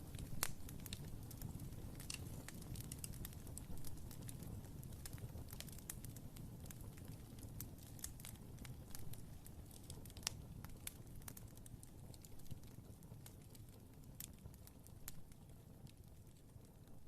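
Fireplace fire crackling, with irregular sharp pops and snaps over a low steady rumble, growing gradually fainter toward the end.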